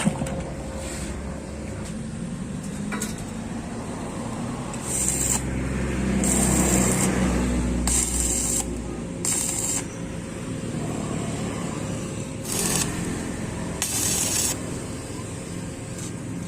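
Short hissing bursts, about six of them, over a steady low hum: a spray or jet of air being triggered on and off.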